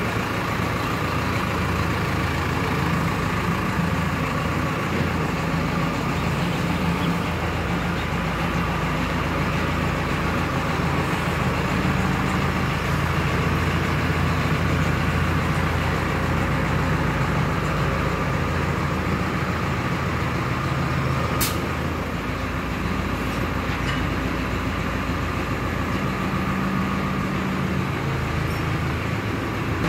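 Tractor engine running steadily at an even speed while farm implements are moved into the garage, with one sharp click about two-thirds of the way through.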